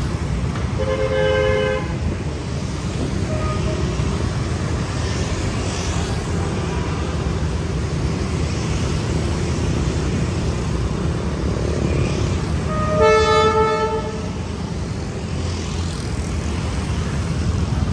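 Two short horn blasts, each about a second long, one near the start and a louder one about 13 seconds in, over a steady low engine and traffic rumble.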